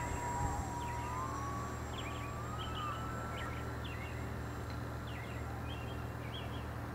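Distant electric motor of an E-flite Apprentice S 15e RC plane whining; its pitch rises slightly about a second in, and it fades after a few seconds. Birds chirp throughout over a steady low rumble.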